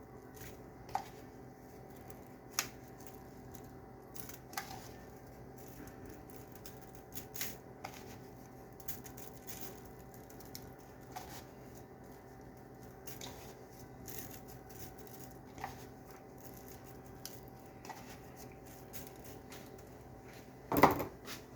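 Scattered light clicks and taps of hands and a seasoning container at work while seasoning is sprinkled on raw chicken, over a faint steady hum, with a louder knock near the end.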